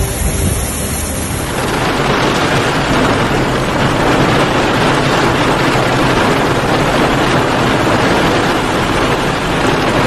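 Wind buffeting the microphone, then, after an abrupt change about a second and a half in, the steady dense hiss of a heavy downpour pelting the ground.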